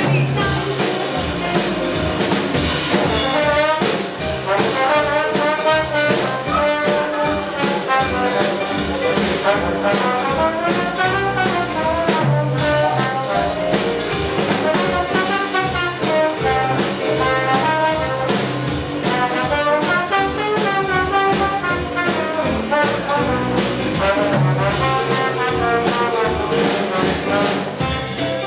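Live swing jazz combo playing: a trombone carries the melody over a Casio electric keyboard and a drum kit keeping a steady swing beat.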